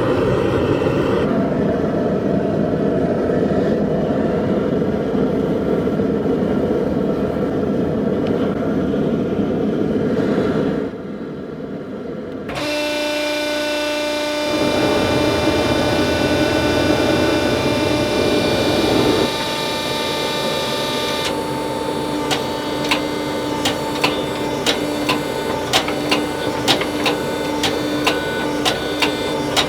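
Workshop machinery in a knife-making shop, heard in several cut-together stretches. A steady, noisy machine runs for about ten seconds, then after a short quieter gap a motor hums with steady tones. From about two-thirds of the way in, irregular light ticks and taps sound over the hum.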